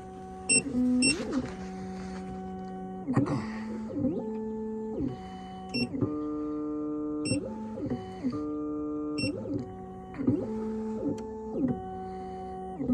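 Black Widow computerized key machine cutting a key: its stepper motors whine in steady tones that shift and glide up and down in pitch as the carriage moves, over a steady low hum, with a few short ticks.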